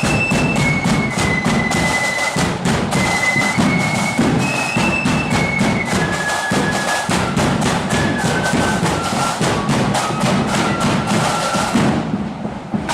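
Marching flute band playing: a high, shrill melody of held notes over fast, steady snare drumming and bass drum beats. The playing stops near the end.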